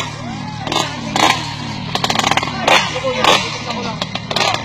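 Motorcycle engines idling steadily, a 1000cc sportbike beside a child's 90cc minibike, under people's voices, with several sharp knocks scattered through.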